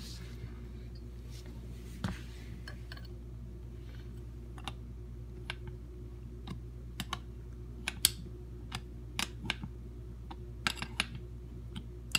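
Wrench clicking against the brass fitting of a braided water hose as it is tightened onto a dishwasher water inlet valve: scattered sharp metallic clicks that come more often after the first few seconds, over a steady low hum.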